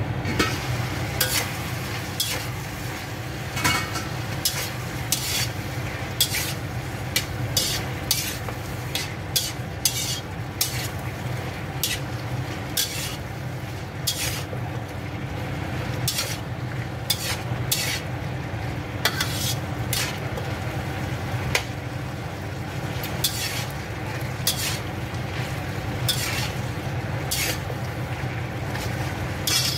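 Shrimp, cucumber and tomato stir-frying in a wok: a spatula clacks and scrapes against the pan every second or so, irregularly, over a steady sizzle and low hum.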